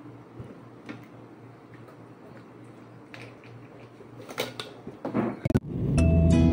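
A man drinking from a plastic water bottle, a few handling and swallowing noises about four seconds in, over a low steady room hum. Music starts abruptly near the end.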